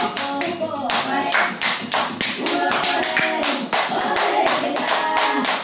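Song with steady hand-clapping, about four claps a second, under a singing voice.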